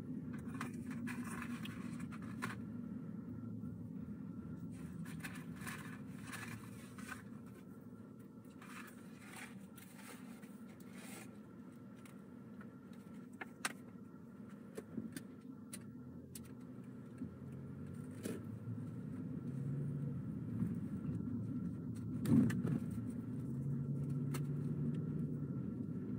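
A car driving, with a steady low rumble of engine and road noise and scattered clicks and rattles. A steady engine hum comes up in the second half as the sound grows louder. A sharp knock about 22 seconds in is the loudest moment.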